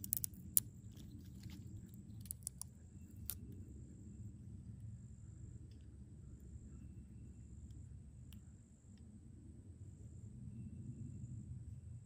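Capuchin monkey gnawing at a pine cone: a cluster of sharp clicks and cracks from the cone's scales in the first few seconds, then only a stray tick or two. Under it runs a steady high insect drone and a low rumble.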